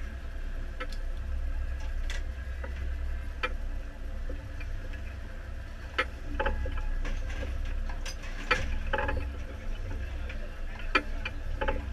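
Steady low rumble aboard a fishing boat at sea, with scattered sharp clicks and knocks, most of them bunched about eight to nine seconds in.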